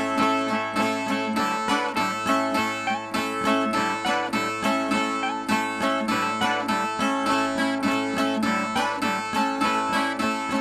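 Nordestina ten-string viola (viola de dez cordas) playing the instrumental interlude between sung verses of a repente, in quick, even plucked strokes over ringing held notes.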